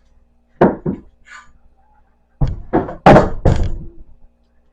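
Treadmill parts knocking and thunking as they are handled during disassembly: two quick knocks, then a run of about five heavier thunks a couple of seconds later.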